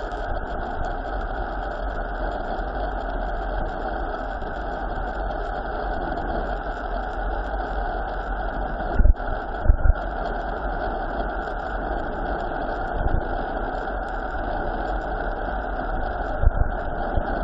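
Steady wind rush and rumble on a bike-carried camera microphone during a fast mountain-bike descent, broken by a few loud low thumps: two about nine to ten seconds in and one near the end.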